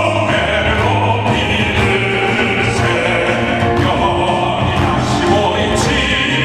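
Several classical-style singers singing a song together over backing music, holding long notes over a steady bass line.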